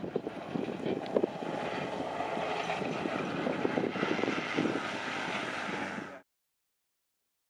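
A motor vehicle running, a dense, uneven noise with scattered knocks, which cuts off abruptly about six seconds in.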